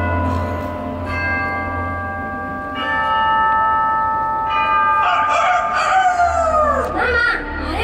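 A large clock bell tolling slowly in a projection show's soundtrack played over loudspeakers: a fresh strike about every two seconds, each ringing on over a low drone. From about five seconds in, swirling effects with sliding, falling pitches take over.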